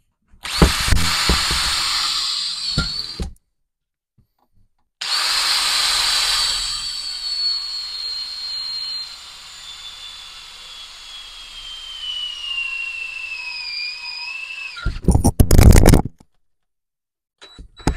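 Cordless drill with a twist bit boring out the plastic handle stub in a hammer head's eye: a high whine over grinding that stops about three seconds in. After a short pause it runs again, its whine slowly falling in pitch as the battery runs flat. Near the end comes about a second of loud rattling knocks.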